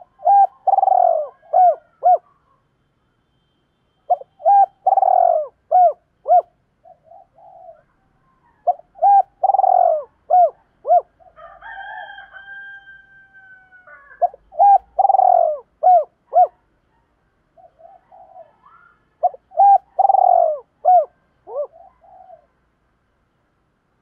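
Spotted dove cooing: five phrases of its call, one about every five seconds. Each phrase is a run of short coos with one longer, louder note near its start.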